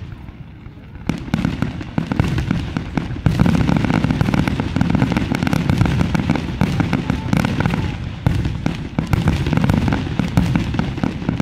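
Fireworks display: aerial shells bursting overhead in quick succession, a dense barrage of booms and rapid bangs over a steady low rumble. It is sparse for the first second, picks up about a second in and grows louder about three seconds in.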